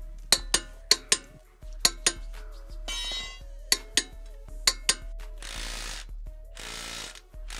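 Click-type torque wrench clicking, mostly in quick pairs, as it reaches its 150 ft-lb setting on wheel-spacer nuts: the nuts are still at torque. About three seconds in the wrench ratchets briefly, and from about five and a half seconds a Hilti SIW 6-22 cordless impact wrench runs in two short bursts on the lug nuts.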